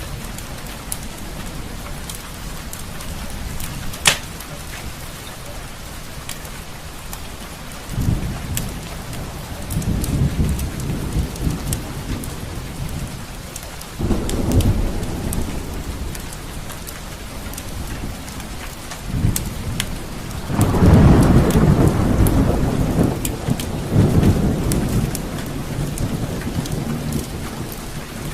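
Steady heavy rain with rolling thunder: deep rumbles swell in several times, the loudest peal about two-thirds of the way through. A few sharp crackling pops sound over the rain, one loud one about four seconds in.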